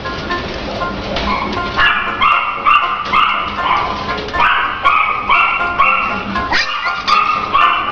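A dog barking in quick, high-pitched yaps, about two or three a second, in a steady run from about two seconds in, over background music.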